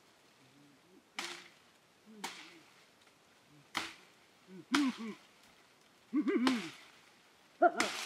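Curved blade chopping into leafy tree branches: six sharp strikes, irregularly spaced about one to one and a half seconds apart, each followed by a short rustle of leaves.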